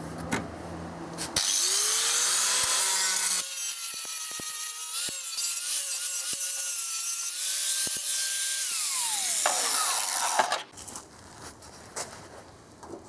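A handheld electric grinder spins up and grinds sheet steel, its motor pitch dipping and wavering as it bites. About ten seconds in it is switched off and winds down with a falling whine.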